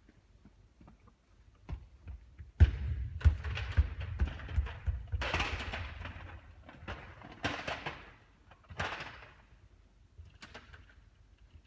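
Basketball thudding and bouncing on a court: a hard bounce about two and a half seconds in, then a quick run of bounces, with a few short swishing noises after.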